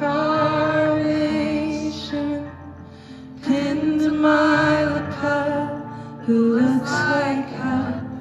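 Live concert music: a woman sings slow, held notes at the microphone over the band's accompaniment. The voice drops away for a moment about three seconds in, then comes back.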